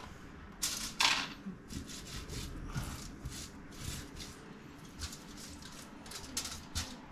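Hands crumbling and spreading dried herb seasoning inside a whole suckling pig, with the plastic bag it lies in crinkling: an irregular run of soft crackles and rustles, two sharper ones about a second in.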